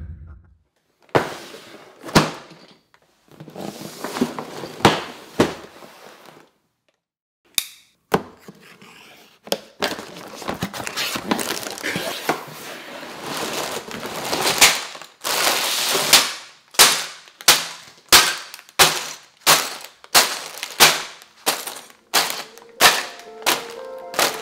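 Lego set unboxing: the cardboard box opened with scraping and tearing of its flaps, then a quick even run of thuds with rattling as sealed plastic bags of Lego bricks are dropped one after another onto a tabletop, about one and a half a second.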